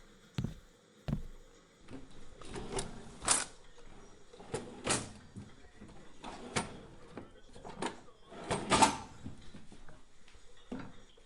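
Kitchen cabinet being opened and rummaged through for spice jars: two short knocks, then handling noise with several separate clatters, the loudest near the end.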